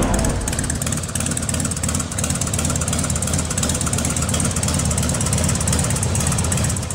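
An engine idling steadily, with a rapid, even pulse.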